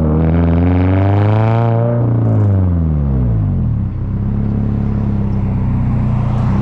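Toyota GR86's 2.4-litre flat-four running through a Tomei 60S titanium cat-back exhaust: revved up at the start, held for a moment, then falling back over about two seconds to a steady idle.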